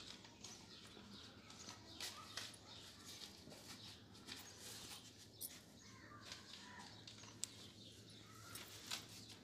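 Near silence: a faint background with a few soft, scattered clicks and some faint chirping calls.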